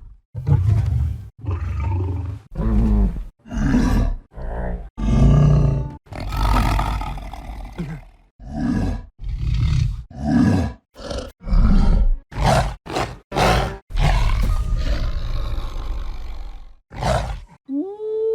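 Creature sound effects for the Monsterverse titan "Dog": a string of about twenty separate short roars and growls, each cut off by a brief silence. The later calls are shorter and sharper.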